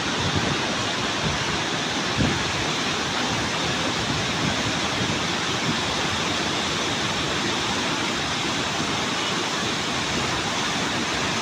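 Fast-flowing river water rushing steadily, an even, unbroken wash of noise.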